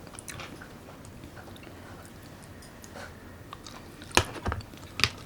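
Close-miked chewing of raw salmon and side dishes, with soft wet mouth clicks and two louder sharp clicks near the end.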